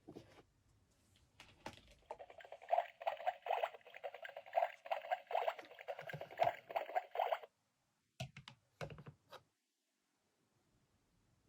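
Unboxing and handling of a miniature plastic toy kitchen set: a dense run of rapid crackling clicks lasting about five seconds, then a few separate clicks, then quiet.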